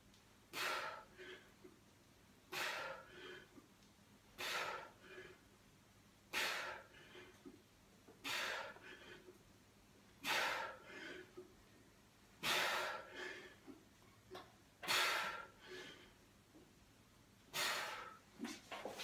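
A man breathing out hard in a sharp, forceful burst with each press of a heavy incline dumbbell set: about one breath every two seconds, the gaps growing longer near the end as the reps get harder.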